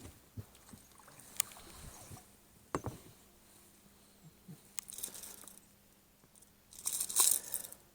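Handling noises in a small inflatable boat: scattered clicks and knocks with short rustling bursts, the loudest burst about seven seconds in.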